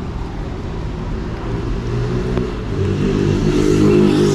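City street traffic, with a motor vehicle's engine running close by and growing louder in the second half as it accelerates.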